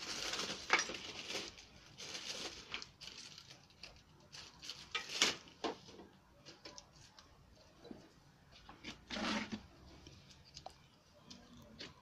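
Paper rustling and crinkling in irregular bursts, with a few sharp knocks of tools or cans on the table: spray-paint art materials being handled.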